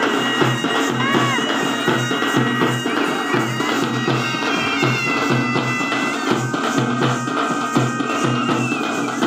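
Folk dance music: frame drums beaten in a steady, evenly repeating rhythm under a high, held melody line that bends in pitch.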